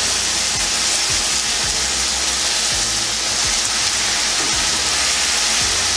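Sliced bell peppers, onions and halved cherry tomatoes sizzling steadily in olive oil in a non-stick sauté pan as they are stirred with a wooden spatula.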